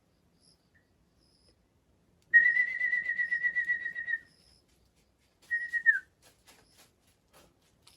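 A warbling whistle: one long, steady high note of about two seconds, then a shorter one that slides down at its end.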